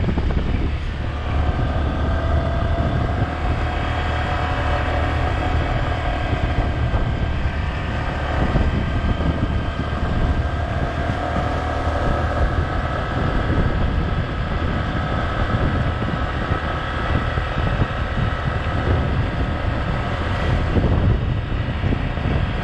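Motorbike riding along at road speed: wind buffets the microphone over the steady note of the engine.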